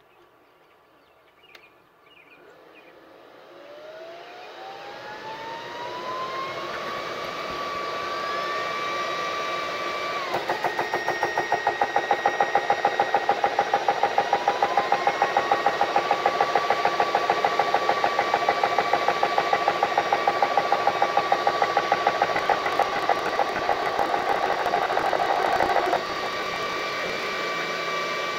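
Small portable high-pressure PCP air compressor starting up and filling an air rifle toward 3000 PSI. The motor spins up with a rising whine, then runs steadily with a fast rhythmic pumping pulse. Near the end the pulsing stops and it settles to a steadier hum.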